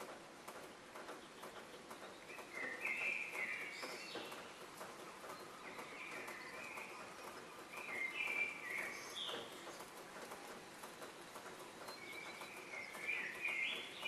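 Small birds chirping in short bursts every few seconds, over faint scattered clicks.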